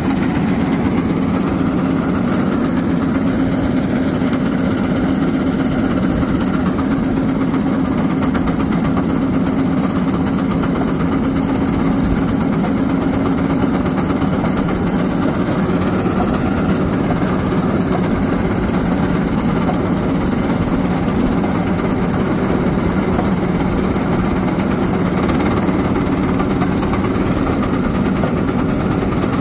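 A motorized railcart's engine running steadily as the cart travels along the rails, a continuous drone whose pitch drops slightly about halfway through.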